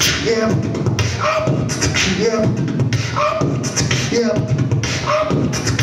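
Human beatboxing into a handheld microphone: mouth-made drum strokes with short pitched vocal sounds woven in, the groove repeating about once a second.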